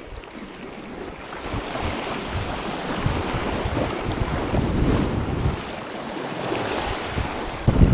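Sea surf washing over shore rocks, with wind buffeting the microphone; the wash swells about a second and a half in, and a strong gust hits the microphone at the very end.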